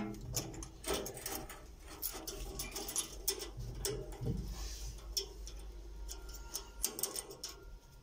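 Irregular metallic clicks and clinks as corrugated metal flexible hoses and a chrome angle valve are handled and fitted to a gas water heater's water connections.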